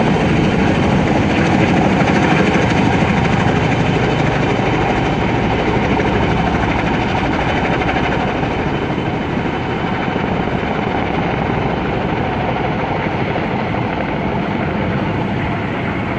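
Boeing Vertol CH-46-type tandem-rotor helicopter flying with an underslung load: a loud, steady beat of rotor blades over turbine noise, slowly fading from about halfway through as it moves away.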